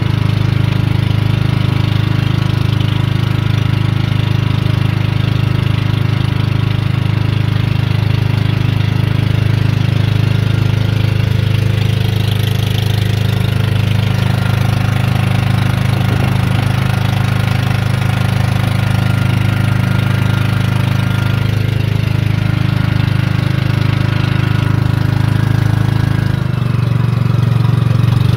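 Outrigger boat's engine running steadily under way, a constant low drone.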